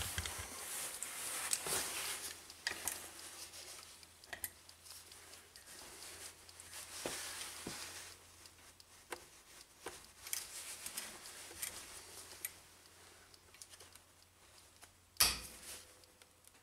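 Locking pliers gripping and working a snapped bolt in a starter motor held in a bench vise, the bolt just heated and water-quenched to break it loose: faint scattered metal clicks and scrapes, with one sharper knock near the end.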